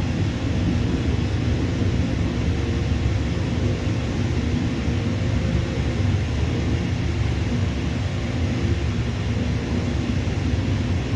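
Jet airliner engine noise: a steady low rumble that holds even throughout.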